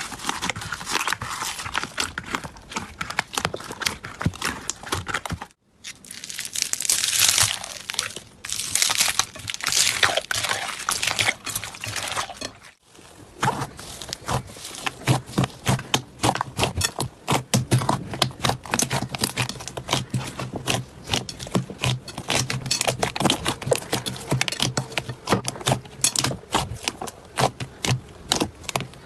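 Slime being squeezed, stretched and poked by hand, giving dense crackling, popping clicks and wet squelches. The sound breaks off twice for a moment between clips.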